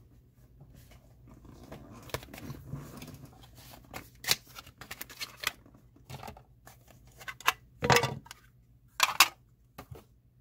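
Handling noises on a desk while a small digital scale is fetched: scattered light clicks and knocks, with two louder rustling scrapes near the end.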